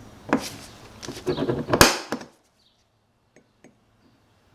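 Spring-loaded center punch being pressed down onto a small steel plate: a few sharp clicks, the loudest a crisp snap a little under two seconds in. Two faint ticks follow as the punch is set on the next hole.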